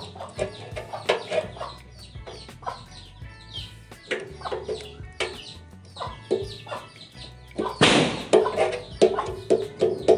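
Chickens clucking repeatedly, with a short, loud hiss about eight seconds in.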